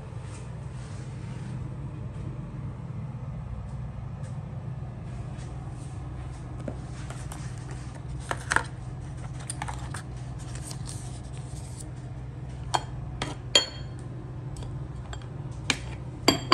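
Light clicks and clinks as small toiletry boxes and bottles are handled and set down on a clear acrylic tray beside a glass, several of them ringing briefly. They come about six times in the second half, over a steady low hum.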